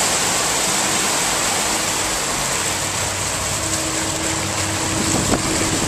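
Motorboat under way at speed: its 350 V8 engine running steadily under the loud rush of churning wake water.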